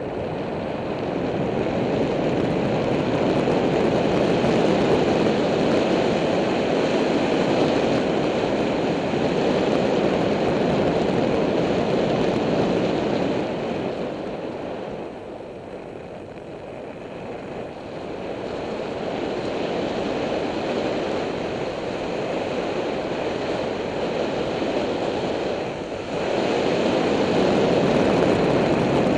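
Wind rushing over the microphone of a moving bicycle rider, a loud steady rush that eases off for a few seconds about halfway and comes back sharply near the end.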